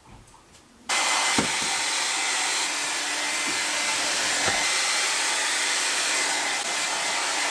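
Hair dryer switched on about a second in, then running with a steady rush of air and a constant motor hum.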